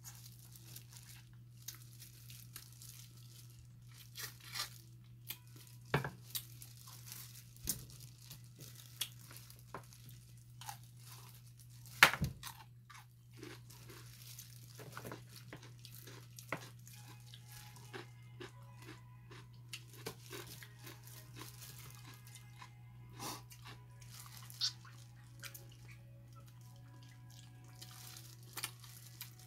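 Eating at close range: chewing crunchy fried food and tearing pieces apart by hand, with scattered sharp crunches, the loudest about 12 seconds in. A steady low hum runs underneath.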